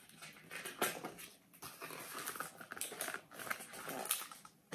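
Paper rustling and sliding as a large hardcover picture book's page is turned and the spread pressed open, in irregular bursts.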